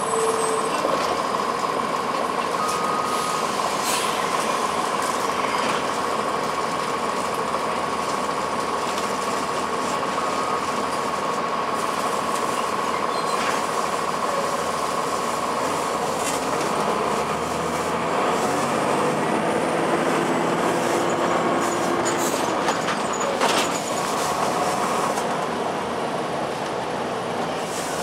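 Inside a 2002 Blue Bird CS transit bus under way: its Cummins ISC inline-six diesel and Allison automatic transmission running steadily, with a steady high whine through the first half and a few short rattles. The engine note changes about two-thirds of the way through.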